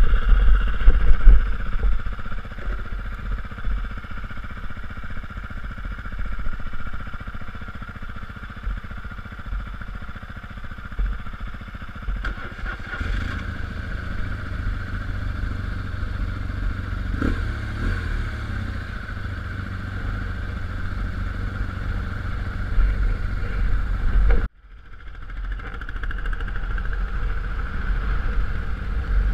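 BMW dual-sport motorcycle engine running while riding over a sandy gravel track. The sound cuts off abruptly about 24 seconds in and then swells back up.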